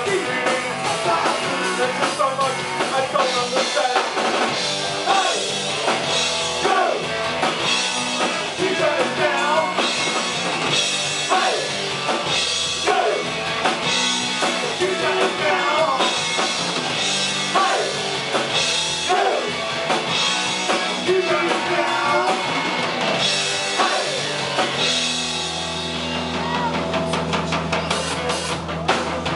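Live rock band playing: drum kit, electric guitars and lead vocals singing. About four seconds before the end the singing stops, a low note is held and the drums play a fast run of hits.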